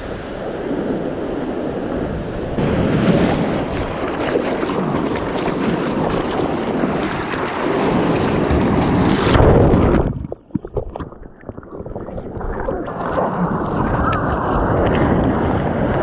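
Wind buffeting the microphone over breaking sea surf. About ten seconds in the noise drops away abruptly, then comes back duller.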